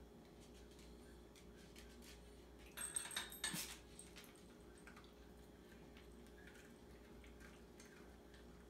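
Stainless steel dog food bowl clinking and rattling against its metal stand for about a second, around three seconds in, as a small dog eats kibble from it; otherwise only faint scattered clicks.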